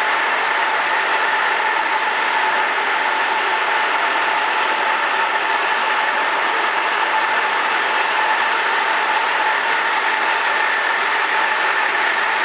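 Circular looms weaving plastic tape into tubular woven-bag fabric, running together as a steady, dense mechanical noise with a few constant whining tones over it.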